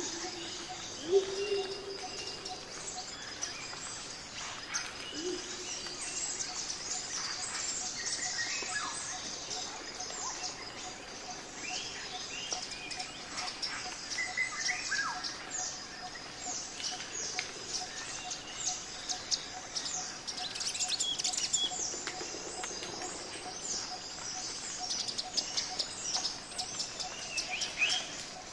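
Birds chirping and calling, many short quick notes overlapping, busiest near the end.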